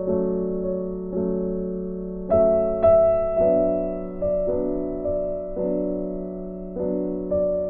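Background piano music: slow chords, a new one struck about once a second and fading before the next.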